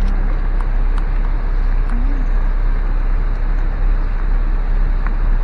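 Steady low rumble of a car heard from inside the cabin as it rolls slowly along, with a few faint clicks.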